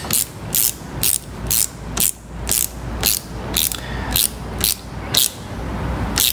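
Small ratcheting driver with a 7mm socket clicking in short bursts, about two a second, each swing-back of the handle. It is tightening a small steel worm-drive hose clamp on a coolant hose. The clicking pauses briefly about five seconds in.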